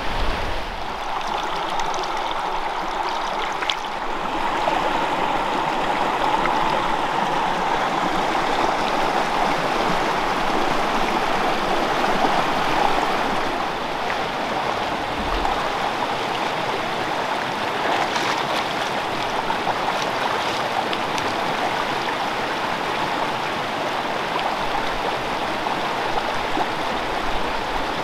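Small freestone mountain stream flowing, a steady rush of running water.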